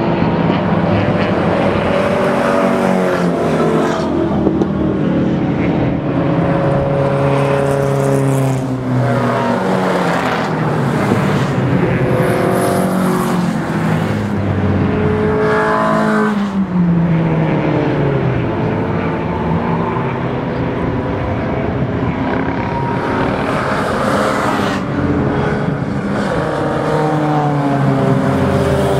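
A pack of race cars running on the circuit, several engines at once rising and falling in pitch as they accelerate, shift and lift, with cars passing by.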